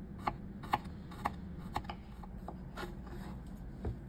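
Small kitchen knife slicing garlic cloves thinly on a wooden cutting board: crisp taps of the blade on the board about two a second, spacing out and getting fainter in the second half.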